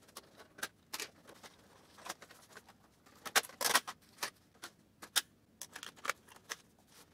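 Irregular plastic clicks and clacks from the casing and inner parts of a Samsung SF-341P inkjet fax machine being taken apart by hand, with the loudest cluster of knocks about three and a half seconds in.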